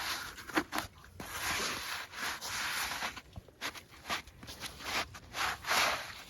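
Crunching and scraping on hard, icy snow, in rough bursts of a second or so with shorter crunches between.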